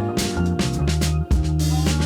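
Background music: a funk/soul-style track with a bass line and a steady drum beat.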